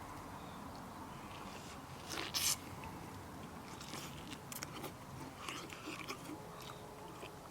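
A person biting into a crunchy raw vegetable, with one loud crisp crunch about two seconds in, then chewing with a run of shorter crunches.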